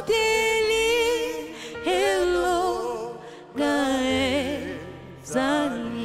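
A woman singing a slow gospel song into a microphone, held notes with vibrato, over sustained electronic keyboard chords. Four phrases start about every second and a half to two seconds, each loud at the start and then fading.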